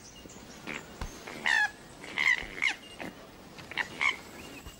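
A series of short, high-pitched animal calls: about six brief chirps, some gliding in pitch, spread over a few seconds.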